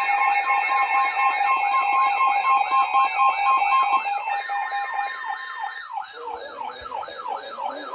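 Several emergency alert receivers sounding their attention signals at once, announcing incoming emergency alerts. A steady tone with a beeping tone just above it stops about four seconds in. Rapidly repeating up-and-down sweeping alarm tones and a high warbling tone carry on under it and grow quieter toward the end.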